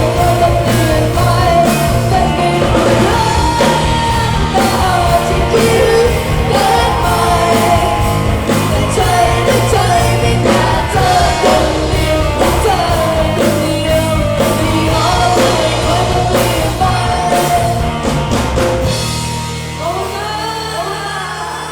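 A Thai pop-rock song sung by a male or female vocalist over a full band with a steady beat. Near the end the song fades out and a few sweeping rising-and-falling tones are heard.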